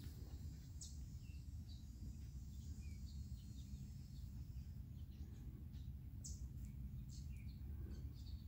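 A steady low rumble with scattered short, high bird chirps throughout.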